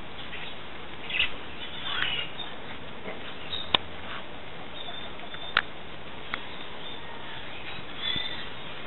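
Puppies giving a few short, high squeaks in the first two seconds, then three sharp clicks a couple of seconds apart, over a steady hiss.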